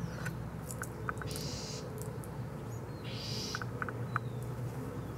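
Small birds chirping in short, high notes now and then. Two brief bursts of hissing noise come about a second and a half in and again about three seconds in, over a steady low background hum.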